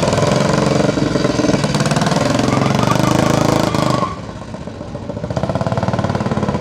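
Vintage motorcycle with sidecar, its engine running at low speed with a rapid, even beat of firing pulses. About four seconds in the sound drops away suddenly, then the engine builds back up near the end.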